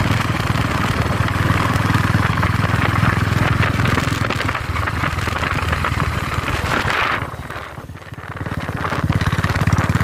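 Motorcycle engine running steadily at road speed, its exhaust pulsing, with wind rushing past. About seven and a half seconds in the engine note drops away briefly, then picks up again.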